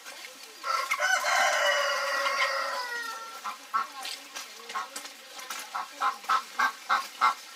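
A rooster crows once, a long call of about two and a half seconds that drops in pitch at the end. From about five seconds in, a run of short repeated fowl calls follows, about three a second.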